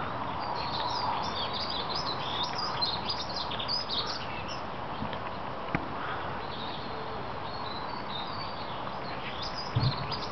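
Small birds chirping and twittering, busiest in the first half and again near the end, over a steady hiss, with one brief low thump near the end.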